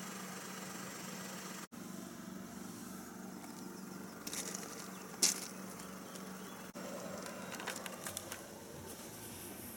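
Citroen C3's 1.2-litre three-cylinder PureTech petrol engine idling with a steady low hum. A few sharp clicks and crackles come in the middle, the loudest about five seconds in, and more near the end. The sound drops out briefly twice.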